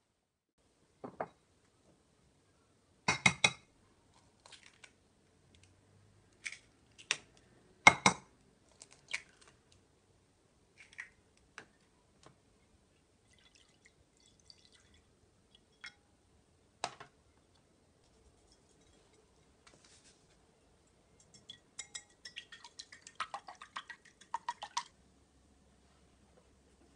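Kitchen preparation sounds: scattered sharp taps and knocks as eggs are cracked on a ceramic bowl and utensils are set down, then a few seconds of rapid clinking as the egg and milk batter is beaten in the bowl.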